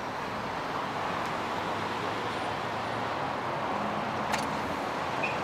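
Street traffic: a steady rush of passing vehicles that slowly swells, with a couple of faint clicks near the end.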